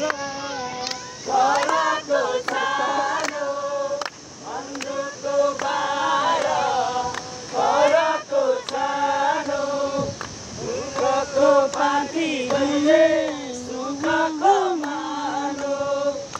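A group of men and women singing a song together in chorus, with long held notes.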